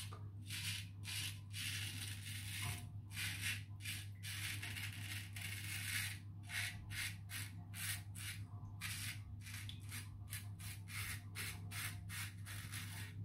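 Double-edge safety razor (Razorine Flatboy with a Kai blade) scraping through lathered stubble on the neck in many short strokes, about two a second and quicker near the end, over a low steady hum.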